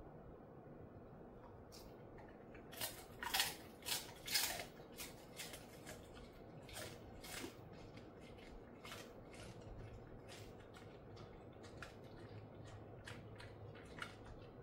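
Dog crunching a dry, crunchy treat: a burst of loud crisp crunches a few seconds in, then slower, quieter chewing clicks.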